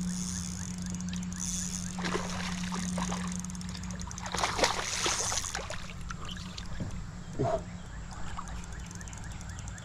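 Water sloshing and splashing close by, with louder splashes about two seconds in, around four and a half to five and a half seconds (the loudest), and again near seven and a half seconds, over a steady low hum.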